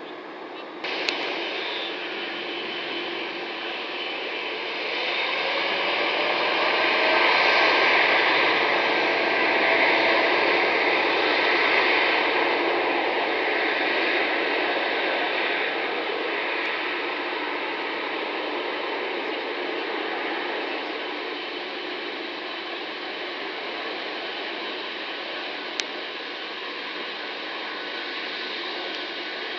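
Boeing 787-10's GEnx-1B turbofans at takeoff thrust during the takeoff roll: a broad, even jet noise that jumps up with a click about a second in, swells to its loudest over the next several seconds, then slowly fades as the aircraft rolls away. A second brief click comes near the end.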